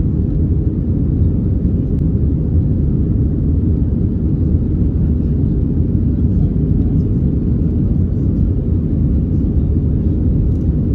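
Steady cabin noise inside an Airbus A320-family airliner in flight: an even, low rumble of the jet engines and the airflow over the fuselage, heard from a window seat over the wing.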